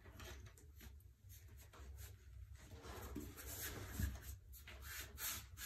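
Faint scraping and rubbing as pebble mosaic tile is pressed and worked into fresh mortar by hand, with a few light clicks.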